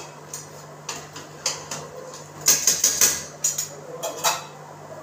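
Long steel ladle clinking and scraping against a large steel cooking pot as the cooking dal is stirred, in short irregular strokes.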